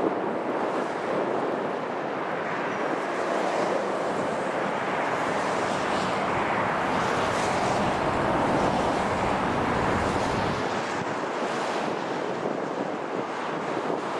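Steady rush of highway traffic, mostly tyre noise, swelling with a deeper rumble from about six to ten seconds in as a heavy vehicle goes by.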